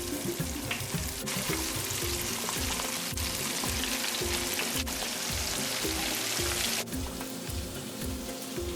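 Flour-coated snapper pieces sizzling as they fry in hot oil. The sizzle swells about a second in and cuts off suddenly near seven seconds. Background music with a steady beat plays underneath.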